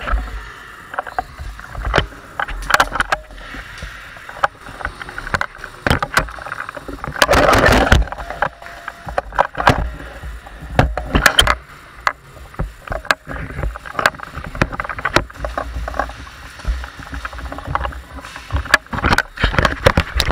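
Close rustling with irregular knocks and clicks from an airsoft player's gear, rifle and steps as he moves. A louder rush of rustling comes about halfway through.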